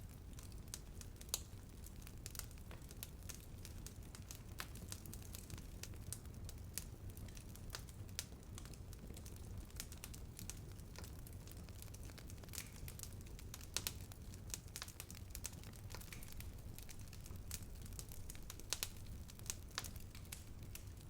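Wood fire burning with a steady low rumble and frequent sharp crackles and pops, a few of them louder.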